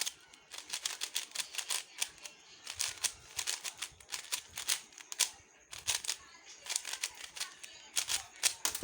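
A new plastic 3x3 puzzle cube being turned quickly by hand, its layers clacking in rapid, irregular runs of clicks with short pauses. It turns dry, without lubricant.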